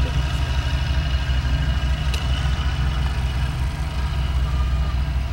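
Diesel engine of heavy road-paving machinery running steadily, a deep, low, even hum, with a faint click about two seconds in.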